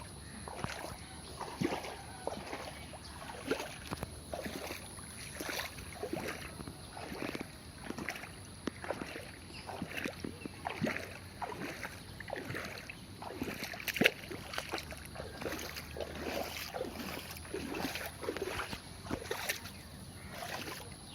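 Floodwater splashing and sloshing in short, irregular strokes, a few each second, with one sharper splash about two-thirds of the way through.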